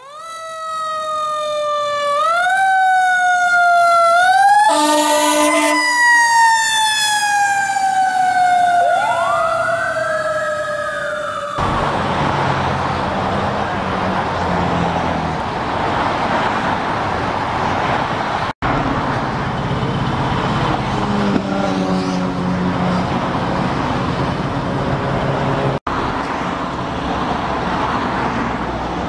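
A siren rising in short repeated sweeps, then winding down in one long falling wail. About eleven seconds in it cuts off abruptly to steady freeway traffic noise with an engine running, broken twice by brief dropouts.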